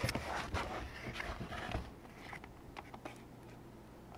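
A cardboard box lid being opened and the box handled: a few soft scrapes and taps in the first two seconds, then quieter.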